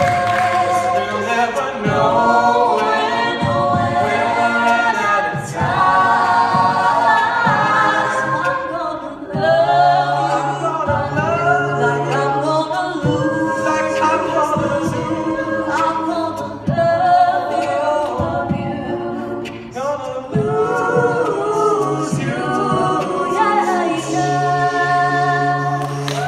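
Mixed-voice a cappella group singing in close harmony through microphones, a low bass voice holding long notes beneath the upper parts.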